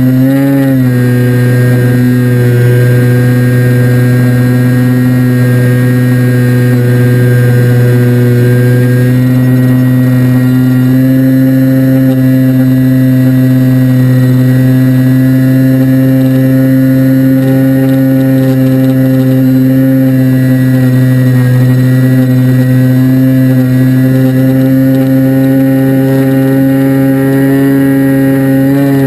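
Electric motor and propeller of an FPV model aircraft running at a steady throttle, a loud, even whine with a brief dip and recovery about half a second in and a sharp drop in pitch at the very end.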